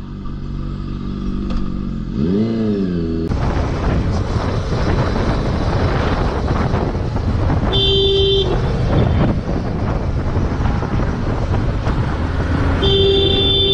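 Motorcycle engine idling with one short rev, then, after a sudden change, the engine and wind noise of a motorcycle riding at motorway speed. A horn sounds twice, briefly about eight seconds in and again near the end.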